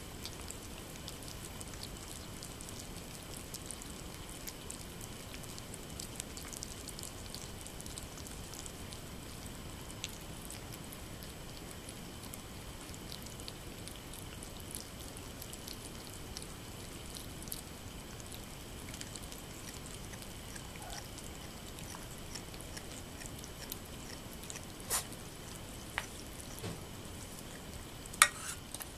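Norwegian Forest Cats eating soft weaning food from a plate: faint wet chewing and lapping clicks over a steady hiss, with a few sharper clicks near the end.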